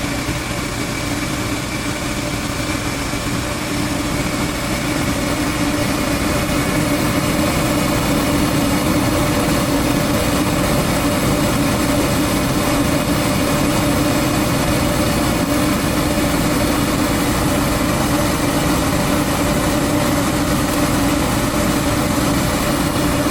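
Goodman gas furnace running with its burners lit: a steady whooshing hum of burner flames and fan, with a steady low tone through it.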